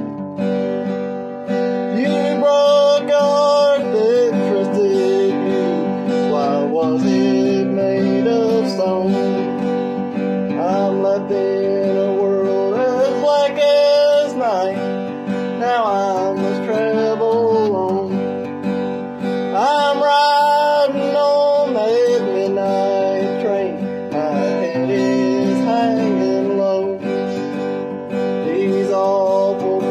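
Steel-string acoustic guitar strummed with a flat pick, with a man singing a bluegrass song over it, his voice bending and sliding between notes.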